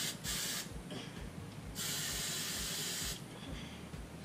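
TRESemmé aerosol hairspray can spraying into a cup in hissing bursts: a short spray at the start, then a longer one lasting over a second in the middle.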